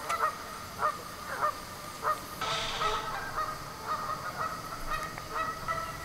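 Canada geese honking: single honks about every half second at first, then overlapping calls from several birds from about two and a half seconds in.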